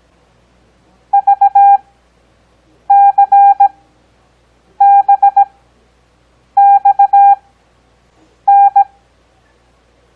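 Morse code practice tones: a steady single-pitch beep keys out five characters, sent fast at a 17 WPM character speed. Each character is followed by a long Farnsworth gap of about a second, for an overall pace of 6 WPM.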